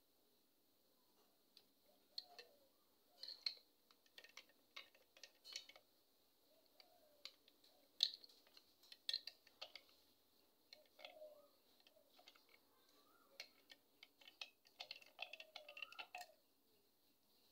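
A spoon stirring juice in a drinking glass: quiet, irregular clicks and taps of the spoon against the glass.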